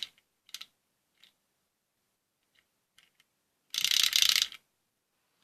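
Small LEGO electric motor briefly spinning its plastic gears: a short burst of rapid clattering ticks, under a second long, about four seconds in, with a few light plastic clicks before it.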